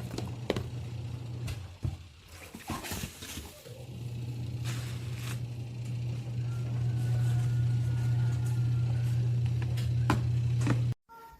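Electric kettle heating water: a steady low electrical hum with a rumble that grows louder over the second half, and a few clicks and knocks early on.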